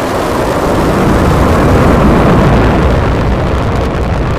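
Falcon 9 rocket's nine Merlin 1D first-stage engines at liftoff: a loud, deep rumbling roar that swells to its peak about halfway through.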